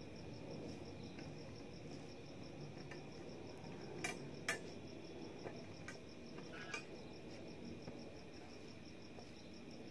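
An insect chirping steadily with a rapid, even pulse, over the soft sounds of fingers mixing rice on a steel plate, with a few light clicks and taps about four seconds in.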